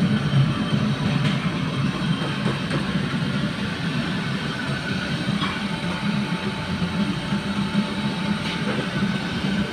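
Steady low rumble with a fainter hiss above it, even and unbroken.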